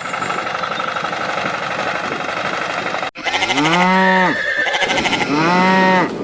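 A steady mechanical noise that cuts off suddenly about three seconds in. It is followed by two long animal-like calls, each rising and then falling in pitch, the first about a second long and the second shorter.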